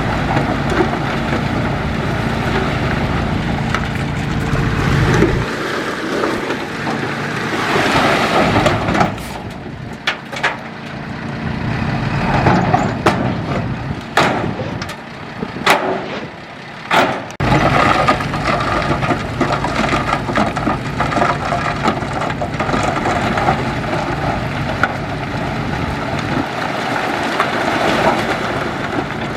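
Heavy earthmoving machinery running, a steady diesel engine drone with several sharp knocks in the middle, before it settles back into steady running.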